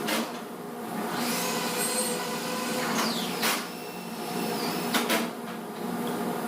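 Timber-framing work with power tools: a steady machine hum, broken every second or so by short, sharp tool noises.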